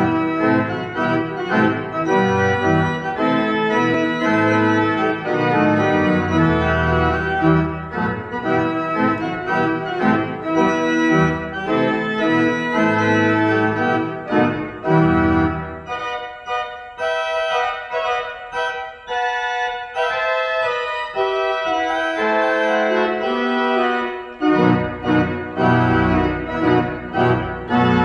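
Three-manual organ playing full chords over deep pedal bass notes. About halfway through the deep bass drops out for several seconds, leaving lighter playing on the manuals, and it comes back near the end.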